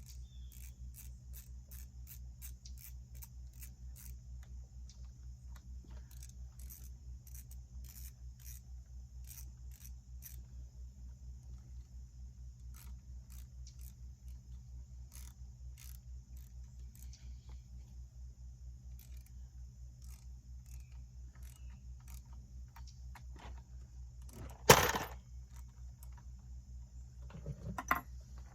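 Handling noise: scattered light clicks and scrapes over a steady low hum, with one sharp knock near the end.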